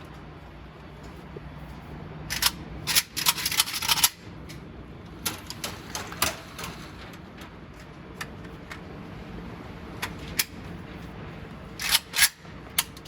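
Sharp metallic clicks and clacks from handling a firearm and its ammunition, with a quick rattling run of them about two to four seconds in, scattered single clicks, and a few loud ones near the end.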